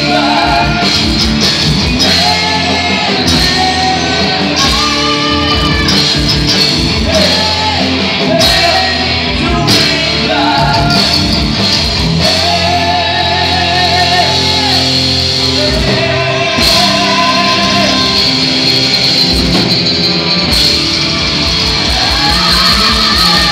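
Live heavy metal band: a male singer holding long wavering notes over electric guitars and drums.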